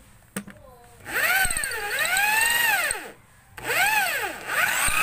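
Handheld electric drill boring into a wooden block: the motor whine rises and falls as the trigger is squeezed and eased, in three runs with short pauses between, the last one rising and holding steady. A single click comes just before the first run.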